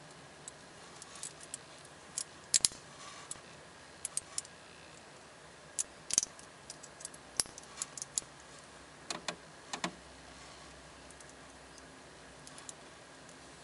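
Solid stainless steel bracelet and fold-over clasp of a Doxa SUB 1000T dive watch being handled: scattered sharp metallic clicks and clinks as the clasp is worked shut and the links shift, the loudest a few seconds in and around the middle.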